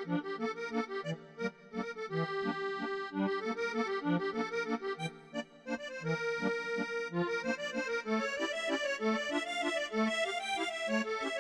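Background accordion music: a lively tune of held chords over a bass line of evenly repeated notes.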